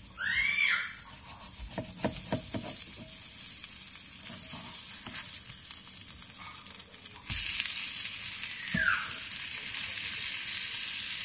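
Eggplant omelettes frying in oil in a nonstick pan: a steady sizzle, with light clicks and scrapes from a plastic spatula about two seconds in as the omelettes are turned. The sizzle gets suddenly louder about seven seconds in, as a flipped omelette lands in the hot oil. There is a brief squeak right at the start and another, falling one near nine seconds.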